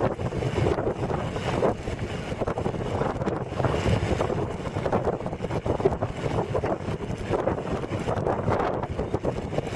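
Wind rushing over the Nikon Coolpix S8100's built-in microphone while riding along a road: a steady, rough rush of noise that swells and dips in gusts, with a low rumble underneath.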